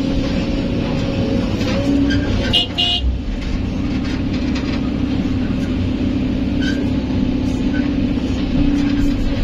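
Kobelco SK200 excavator's diesel engine and hydraulic pump running steadily under load, heard from inside the cab as the loaded bucket swings over the dump truck. A brief high-pitched toot sounds about two and a half seconds in.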